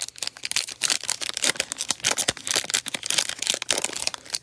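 Wrapper of a trading-card pack being torn open and crinkled in the hands, a dense run of quick crackles.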